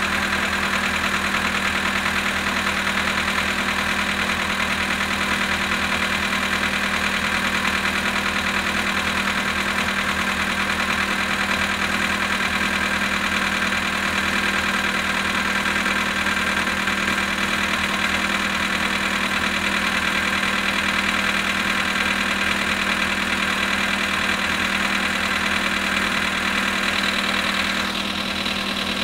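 Volkswagen Polo sedan engine idling steadily in −19 °C cold with a knock from the engine. It is the cold-weather engine knock the owner is recording. The sound gets slightly quieter and duller about a second before the end.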